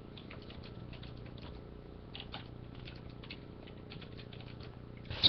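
Faint, irregular light clicks and taps over a low steady hum, with one sharper click near the end.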